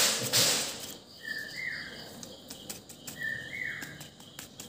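Paper and foil wrapper crinkling as it is handled for about the first second. Then a bird calls twice, about two seconds apart, each call a short high note followed by a slurred note, over a faint steady high hum.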